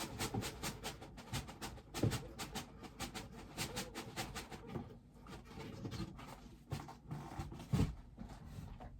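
A bobblehead's box and packaging being handled: a run of quick clicks and crinkles, with a heavier knock about two seconds in and another near the end.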